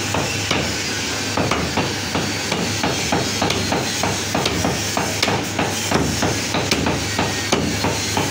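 Heavy butcher's cleaver chopping a rack of mutton ribs through the bone on a round wooden chopping block: a steady run of sharp chops, about three a second.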